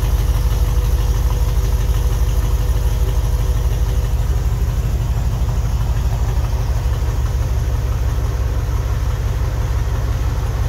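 Mercedes-Benz E55 AMG V8 idling cold with a steady, even low rumble at the twin tailpipes. It runs through long-tube headers, an X-pipe and a catless, resonator-less 3-inch exhaust into stock mufflers.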